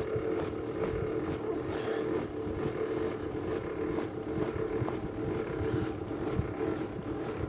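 Metal-cutting machine tool, most likely a milling machine, running steadily under load as it cuts excess metal off a clamped steel part, with an even hum throughout.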